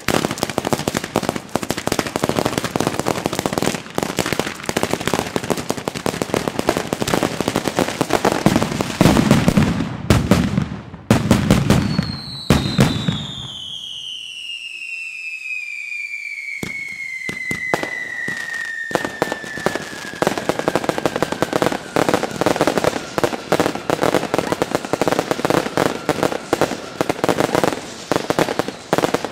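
Daytime fireworks firing: a dense, rapid run of cracks and bangs that is heaviest about nine to thirteen seconds in. After about twelve seconds a long whistle sets in and slowly falls in pitch over some fifteen seconds. The crackling stops briefly, then comes back in fast volleys.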